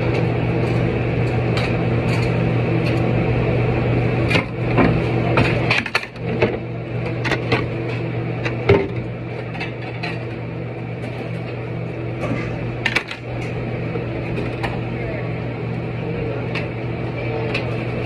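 Kitchen work: scattered clinks, knocks and clatter of dishes and utensils over a steady electrical hum, with a busier run of knocks about a quarter of the way through.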